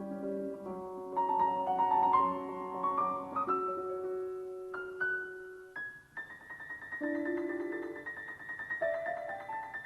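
Solo classical piano music: chords and runs of notes, then from about six seconds in a high note repeated rapidly over a slower moving line.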